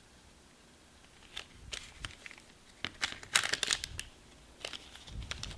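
Crinkling and rustling of a foil trading-card booster pack wrapper in irregular bursts as it is handled and opened, starting about a second in.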